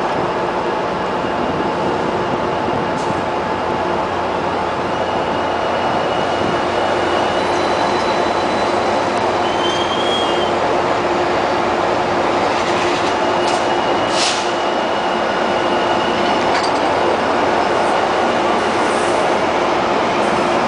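Electric light-rail train rolling slowly along the platform: a steady rumble of wheels with an even electric motor hum. There is a brief high wheel squeak about halfway through and a few short squeals or clicks soon after.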